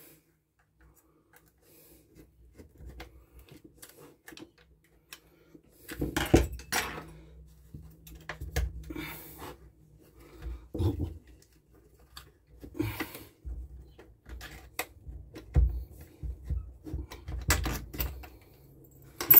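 Hands working on a Homelite chainsaw's plastic air box housing as it is unscrewed and worked loose: scattered clicks, knocks and rattles of plastic and small metal parts, busier from about six seconds in.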